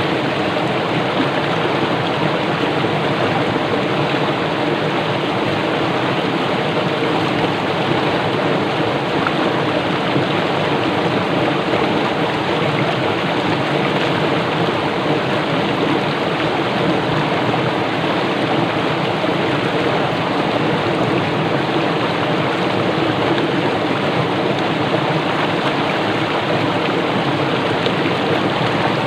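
Fast-flowing small river rushing over rocks and churning into bubbles: a steady, unbroken rush of water.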